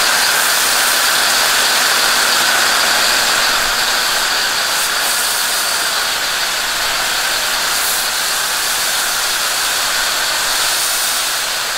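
Pressure-washer foam cannon spraying thick soap foam onto a truck's body panels and wheel: a steady, unbroken hiss.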